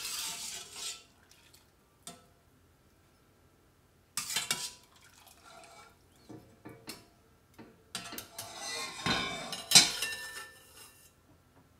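Stainless slotted skimmer scraping and knocking in a stainless saucepan of hot water as boiled shrimp are fished out, in short bouts with pauses. Near the end comes a longer run of scraping and clinking against a ceramic bowl as the shrimp are tipped in, loudest about ten seconds in.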